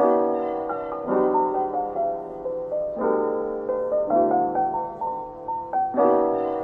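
Background music: a soft piano-led track playing chords that change about once a second.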